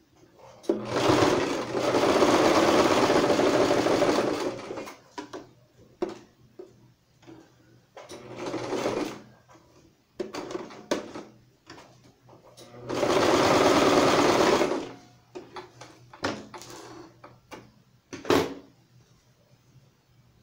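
Domestic electric sewing machine stitching a seam through fabric in stop-start runs: a run of about three seconds, a short one around eight seconds in, and another long run about thirteen seconds in, with small clicks and fabric handling between. A sharp click near the end.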